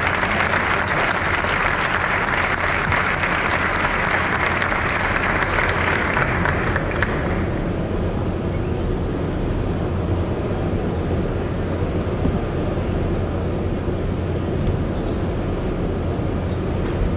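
Audience applauding, the clapping dying away about seven seconds in and leaving a steady low hum and the background noise of a large hall.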